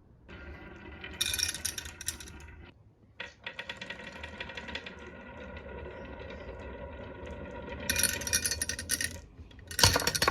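Marbles rolling down a marble run track in a steady fine rattle, with louder clattering bursts about a second in, around eight seconds, and near the end.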